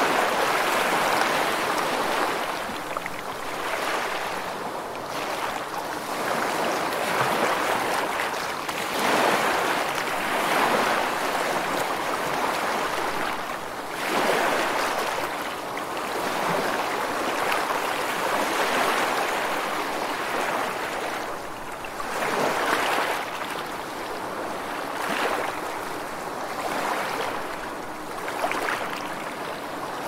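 Ocean surf washing onto a shore: a continuous rush of breaking waves that swells and eases every few seconds.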